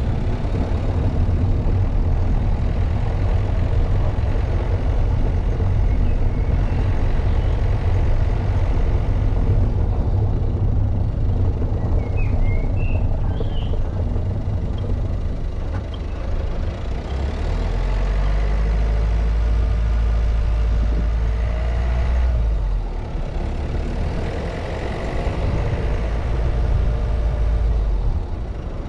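Car driving: a steady low rumble of engine and road noise, with a few short high chirps near the middle and the engine pitch rising and falling in the second half.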